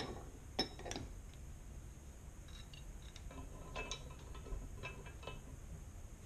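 Light metallic clicks and clinks of small hardware being handled as a nut is fitted onto a bolt of a motorcycle side-rack mounting kit: a few sharp clicks in the first second, then a run of faint clinks after a pause.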